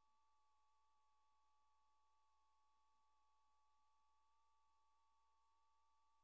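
Near silence with a faint, steady electronic whine of two close unchanging tones, from the film transfer's signal chain rather than from the game.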